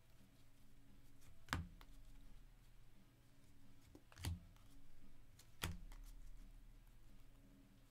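Topps baseball cards being flipped through by hand, faint, with three sharp card snaps or taps, the last two about a second apart.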